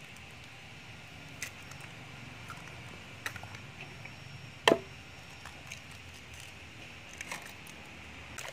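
Duck eggs being cracked: one sharp knock of a shell about halfway through, with a few lighter clicks and taps of shell around it.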